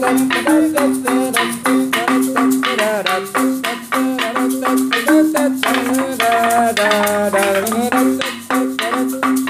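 Traditional ensemble music with struck, pitched notes in a quick, even run over sharp percussion strokes. Some notes bend in pitch.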